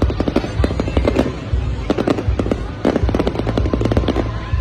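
Aerial fireworks going off in a rapid, continuous barrage: many sharp bangs and crackles a second over a low rumble.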